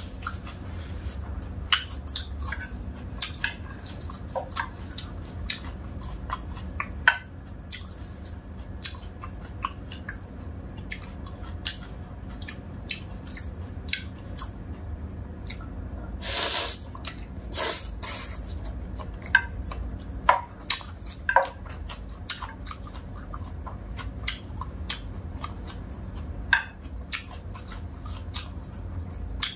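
Close-up eating sounds of dry instant noodles: chewing and wet mouth clicks, with scattered light clicks from wooden chopsticks and a wooden spoon. Two short, louder rushes of noise come about halfway through.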